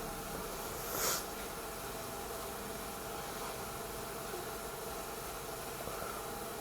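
Steady background hiss, with one short breath through the nose, a quick sniff, about a second in.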